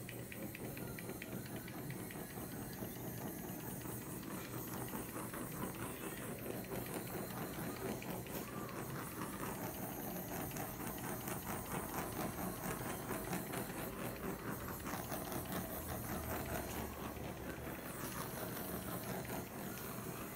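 Handheld gas blowtorch burning with a steady hiss as its flame is passed over wet acrylic pour paint to bring up cells. The hiss stops at the very end, when the torch is shut off.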